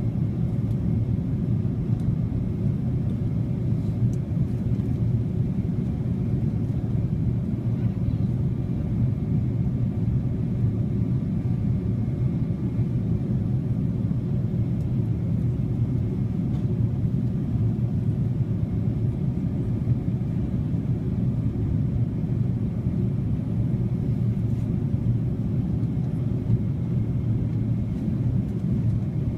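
Steady low rumble of cabin noise inside a Boeing 787-9 airliner in flight, even and unchanging.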